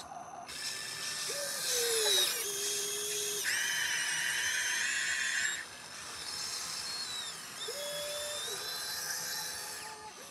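Electric drive motors of a remote-control toy excavator whining as the arm digs and lifts a bucket of sand. The pitch rises and falls with each movement, with a louder, steady high whine for about two seconds near the middle.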